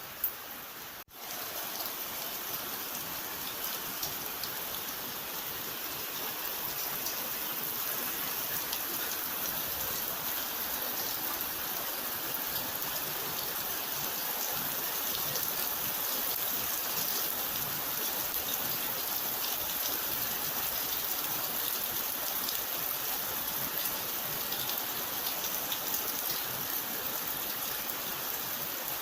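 Steady heavy rain, a dense even hiss of drops, with a brief dropout about a second in, then growing slightly louder.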